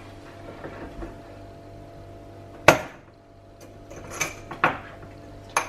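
One sharp knock and then several lighter clicks and taps of kitchen items being handled on a counter, over a faint steady hum.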